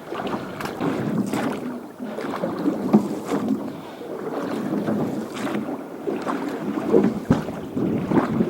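Small rowboat moving on the water: splashing and irregular knocks of the boat and its oars, with wind on the microphone.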